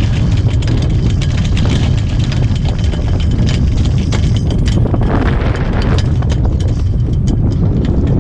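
Wind buffeting the microphone in a steady low rumble, with repeated sharp flaps and clatters from the mainsail as it is hauled down the mast.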